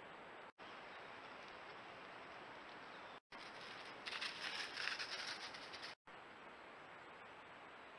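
Steady hiss of a trail camera's microphone, broken three times by short silent gaps. About halfway through, a stretch of dense crackling rustle: a roe deer stepping through dry leaf litter.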